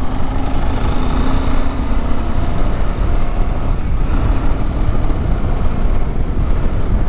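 Motorcycle on the move: steady, loud wind rumble on a rider-worn microphone over a faint, even engine drone.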